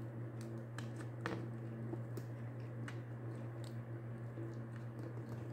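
Faint, scattered small clicks and taps of hands posing a plastic action figure's joints and setting it on a tabletop, over a steady low hum.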